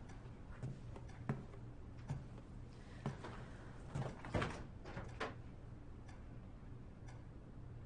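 A refrigerator door is pulled open about four seconds in, with a quick cluster of clicks and knocks as the seal lets go and the door swings. A clock ticks quietly about once a second throughout.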